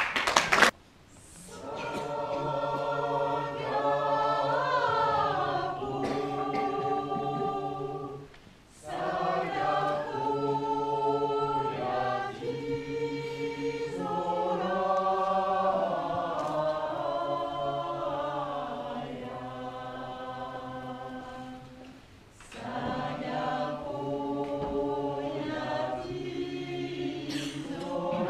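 Choir singing a cappella, in phrases with short breaks about 8 and 22 seconds in. A brief loud knock right at the start.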